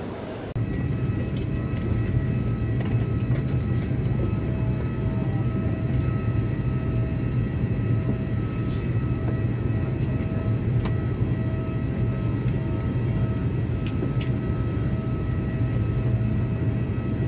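Steady machinery noise inside a parked airliner's cabin during refuelling: a strong low hum with a steady high whine over it and a few light clicks. It begins abruptly about half a second in.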